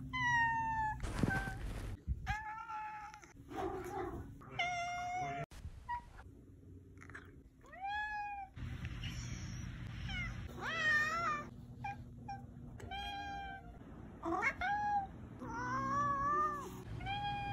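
Domestic cat meowing again and again: about a dozen separate meows of varied length and pitch, some rising and falling, with short pauses between them.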